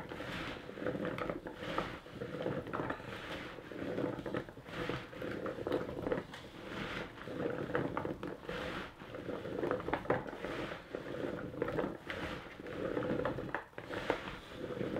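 Cubed potatoes coated in oil and seasoning being tossed by gloved hands in a plastic bowl: wet squelching and clattering of the pieces, in uneven swells roughly once a second.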